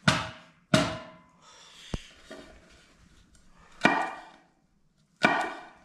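Kitchen knife slapped down hard on a piece of ginger on a wooden cutting board resting on a metal camp stove, smashing it: four heavy blows, each with a short ringing after it, and a light click in between.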